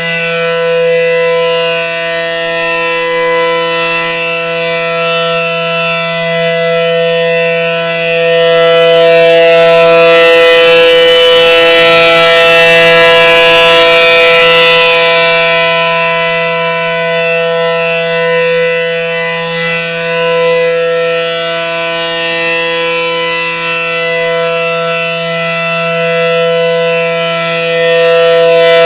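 ACA Allertor 125 outdoor warning siren sounding a steady, loud alert tone, a chord of fixed pitches with no wail. Its loudness swells for several seconds around the middle and again near the end, then falls back.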